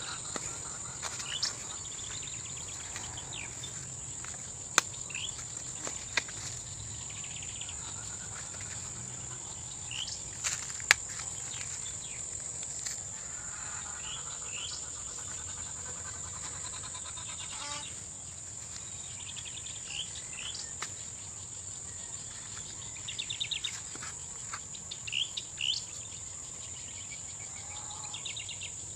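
Steady high-pitched insect chorus with scattered short bird chirps. A couple of sharp clicks stand out, about five and eleven seconds in.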